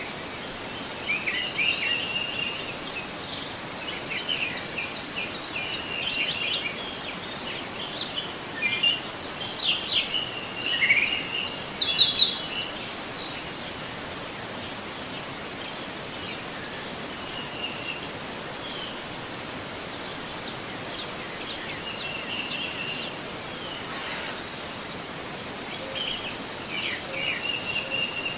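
A forest river running steadily, with songbirds singing in many short chirps and trills over it, busiest in the first half and again near the end.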